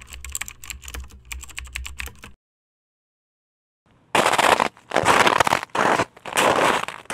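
Computer keyboard typing sound effect, rapid key clicks over a low hum, stopping about two seconds in. After a second and a half of silence, loud, rough hits begin about four seconds in as the intro music starts.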